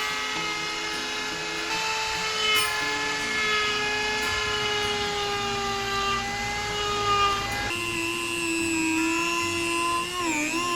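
A power tool cutting into wood with a steady whine. Its pitch sags slowly under load, shifts lower about three quarters of the way through, then wavers near the end as the load changes.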